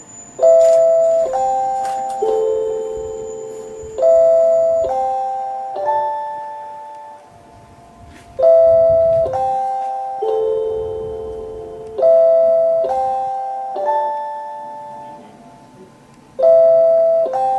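JR Hokkaido's six-note guide chime for blind passengers, playing its soft bell-like melody. It sounds as two three-note phrases, each note struck and fading, the whole six-note cycle repeating about every eight seconds to mark the way for visually impaired passengers.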